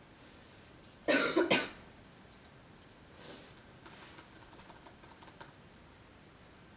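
A person near the microphone coughs, a quick run of a few coughs about a second in. Softer breathy noise follows a couple of seconds later, and faint light scuffs come from the cats wrestling on the carpet.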